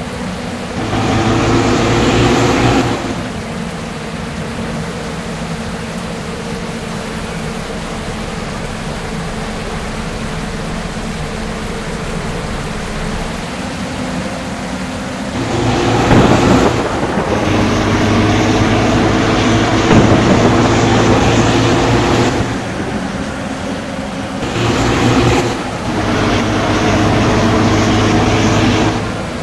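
Diesel bus engine running with a steady hum. It grows louder in sudden spells of a few seconds: once near the start, a longer spell about halfway through, and twice more towards the end.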